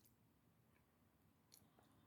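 Near silence, with two faint short clicks, one at the start and one about a second and a half in.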